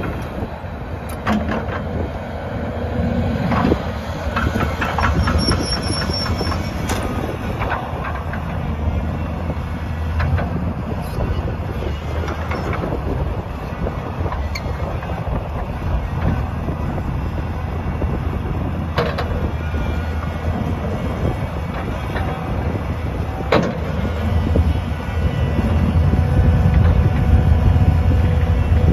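XCMG 210 excavator's diesel engine running under load as the hydraulic boom and bucket swing and dig into dirt, with a few sharp clanks from the bucket and linkage. The engine note grows louder near the end.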